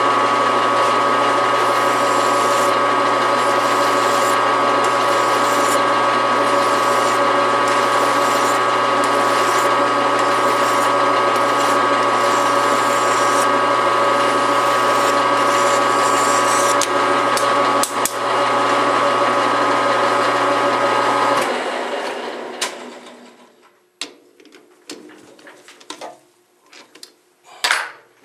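Metal lathe running steadily with a whine from its motor and gearing while a hand file is held against the spinning metal bushing to take the edge off. The lathe is switched off about 21 seconds in and spins down, followed by a few light clicks.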